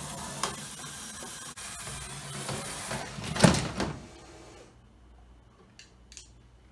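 Small electric motors of a LEGO Technic battlebot whirring over a steady hiss, then a short, loud clatter of LEGO pieces against wood about three and a half seconds in as the robot drops into the arena pit. After that only a few faint clicks.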